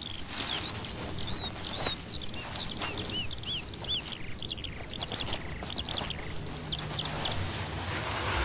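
Small birds chirping in quick, high, hooked notes, one after another, thinning out near the end, with a few brief crackles or rustles among them.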